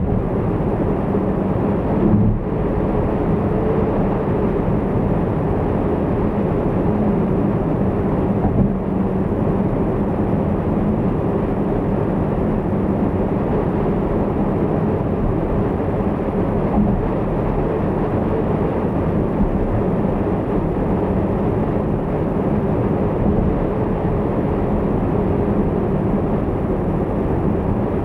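Car driving at expressway speed: a steady rush of tyre and road noise with a low engine hum, and a couple of brief knocks from the road surface.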